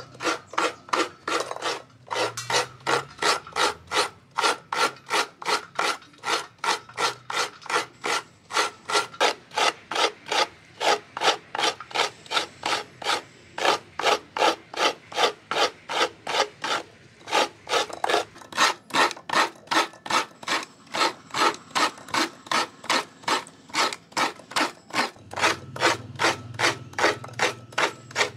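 A coconut half scraped hard against the serrated blade of a traditional stool coconut grater (kudkuran), a rasping stroke about three times a second, shredding fresh coconut meat.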